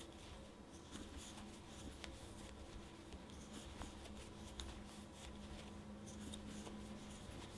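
Faint rubbing and small ticks of an 8 mm crochet hook being worked through chunky yarn, stitch after stitch of single crochet.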